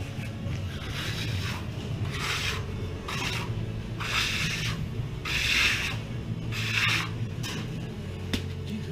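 About six rasping strokes of something being rubbed or scraped by hand across a surface, a little over a second apart and loudest in the middle, with radio music playing steadily underneath.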